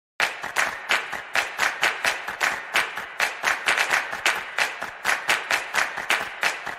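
Rapid, even hand claps at about four a second, the percussion-only opening of an intro music track before the bass comes in.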